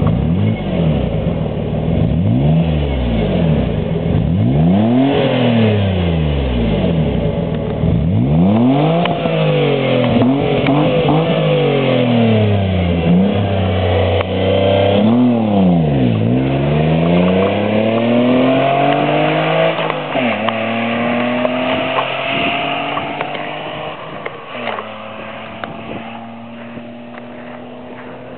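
Jaguar X-Type 2.5's V6 revved at the tailpipe through an aftermarket Mina exhaust, about seven blips, each rising and falling back. After about twenty seconds it holds a steadier note that fades near the end.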